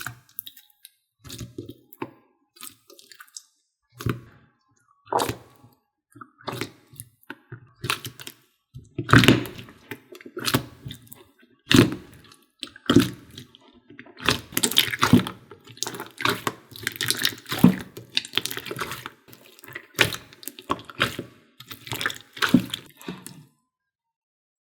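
Jiggly water slime being squished and poked by hand, giving irregular wet squelches, smacks and pops.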